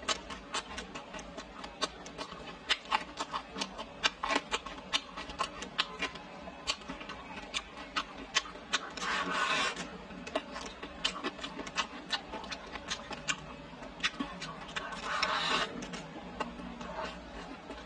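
Chewing and mouth sounds: a dense run of wet smacking clicks, with two longer noisy, slurp-like sounds, one about nine seconds in and one about fifteen seconds in.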